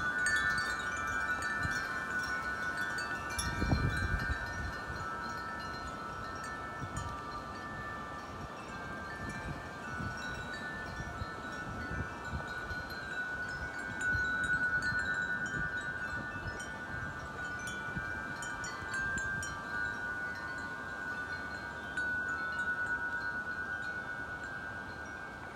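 Wind chimes ringing in the wind, several tones sounding together and struck afresh a few times. A gust of wind rumbles on the microphone a few seconds in.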